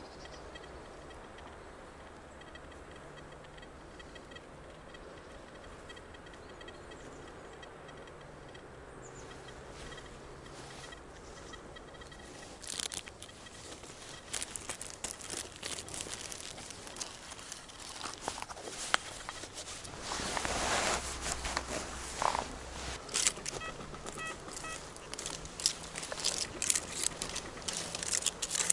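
Soil and dry leaves crunching and crackling as the ground is dug or walked through. It starts about halfway in, after a quiet stretch, and goes on in quick irregular crackles.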